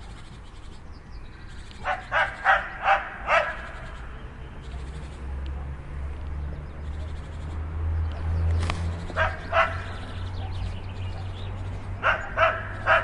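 A dog barking in three short bursts of quick barks: about five a couple of seconds in, two more about nine seconds in, and four near the end.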